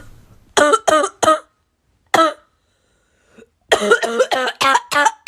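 A person coughing: a few separate coughs in the first two and a half seconds, then a quick run of about six coughs after a short pause.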